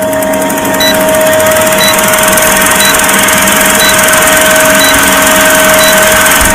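Vintage film-projector countdown sound effect: a loud, steady mechanical whirr and crackle with a constant hum, and a short high beep about once a second as the numbers count down.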